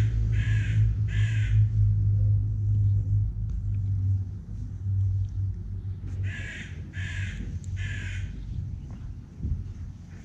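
A crow cawing three times at the start and three times again about six seconds in, over a steady low rumble close to the microphone.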